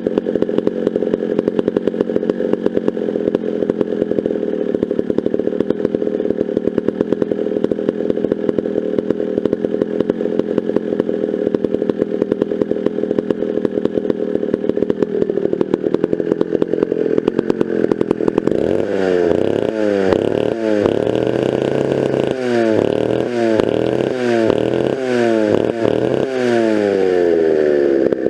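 McCulloch 650 87 cc two-stroke chainsaw idling with an even, rapid firing rhythm. From about two-thirds of the way in it is revved up and down repeatedly in short blips, the pitch rising and falling each time.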